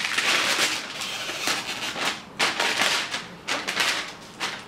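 Plastic mailer bag crinkling and rustling as it is handled and opened, in a run of irregular, loud crackly bursts.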